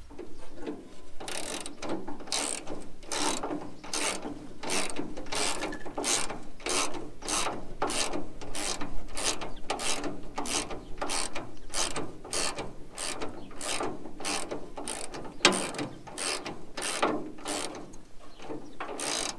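Hand socket ratchet clicking in quick back-and-forth strokes, about two a second, as a bolt is undone.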